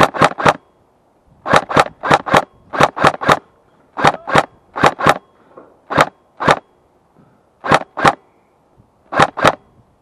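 Airsoft G36 blowback rifle firing semi-automatic shots in quick strings of two to four, about four shots a second within a string, with short pauses between strings; it keeps firing at opponents through the whole stretch.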